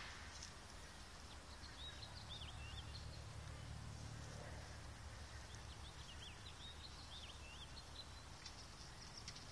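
Faint outdoor ambience: a small bird twittering in two short phrases of quick chirps, about two seconds in and again around six seconds, over a low steady rumble.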